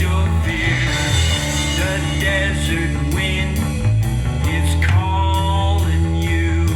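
Rock music with a sung vocal line over guitar and a steady beat.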